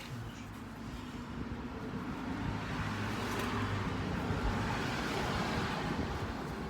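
A car driving past, its engine and tyre noise swelling to a peak partway through and fading again.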